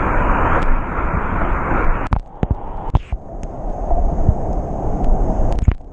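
Whitewater rushing loudly as a steady noise, which drops away suddenly about two seconds in to quieter water. A few sharp knocks follow, one about three seconds later near the end.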